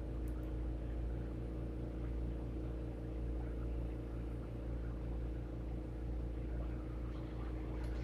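Glassblowing bench torch burning with a steady low rumble and hum.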